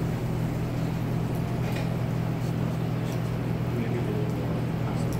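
Steady low mechanical hum, with a few faint ticks and pops from a duck breast sizzling as its fat renders in a frying pan.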